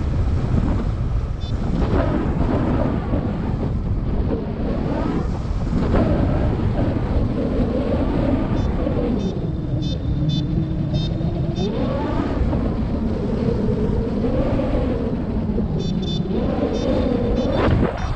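Heavy wind rushing over the microphone of a paraglider in flight, with a hum in it that slowly rises and falls. Short runs of rapid high beeps from a paragliding variometer come through faintly around the middle and again near the end.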